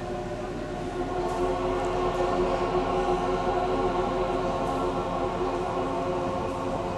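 Church choir singing a long sustained chord, swelling about a second in.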